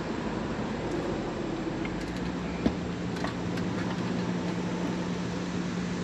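Steady mechanical hum with a low drone that comes in about two seconds in, and a single sharp click just before the middle.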